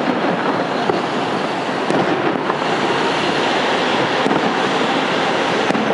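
Fireworks display: a dense, continuous din of shell bursts, with a few sharp cracks standing out about a second, two seconds, four seconds and nearly six seconds in.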